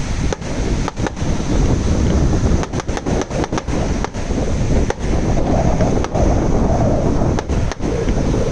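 Wind buffeting the microphone in a heavy, continuous low rumble, with the sound of surf beneath it and several brief sharp dropouts in level.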